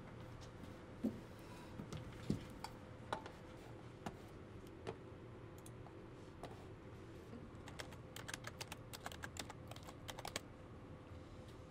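Typing on a computer keyboard: a quick run of key clicks about eight seconds in, after a few scattered knocks and clicks, over a steady low room hum.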